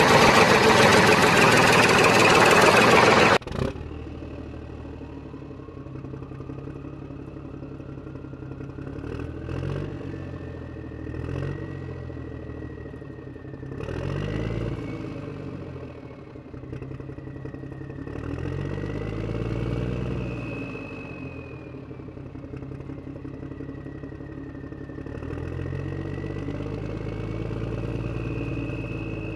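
A loud rushing hiss for the first three and a half seconds, cutting off suddenly. Then a toy tractor's small motor runs with a whine, its pitch rising and falling several times as it drives.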